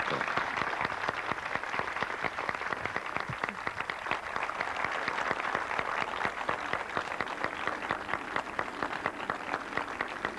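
Audience of many people applauding, a dense, steady clatter of hand claps.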